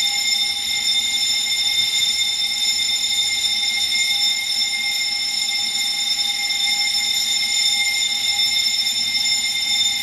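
Building fire alarm ringing continuously at a steady, loud level, set off by activating a manual call point during a fire-alarm system test.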